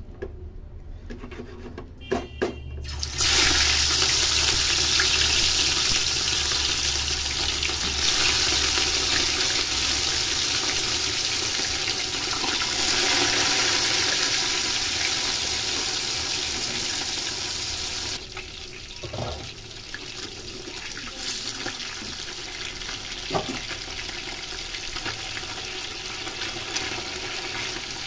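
Marinated fish steaks frying in hot oil in a non-stick kadhai: a loud, steady sizzle that starts suddenly about three seconds in as the fish goes into the oil, easing somewhat later on, with a couple of light knocks.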